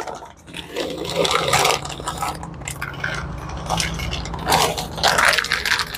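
Clinks and scrapes of feeding dishes, with crunching, as cats eat.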